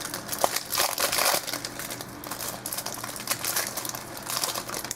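Plastic wrapping on a sealed trading card box being crinkled and torn open by hand, in uneven bursts of crackling that are loudest about a second in.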